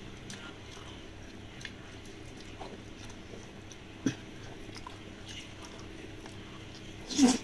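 Quiet hand-eating sounds: fingers picking through rice and chicken and soft chewing, with a small sharp click about four seconds in. Near the end comes a short whine-like vocal sound that rises and falls in pitch, the loudest thing here.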